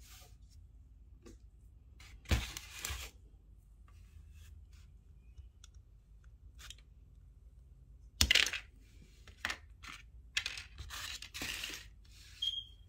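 Close handling of a plastic bottle cap, a wire coil spring and a thin plastic rod as they are fitted together and the rod is cut, giving several short bursts of rustling, clicking and scraping, loudest about two seconds in and about eight seconds in.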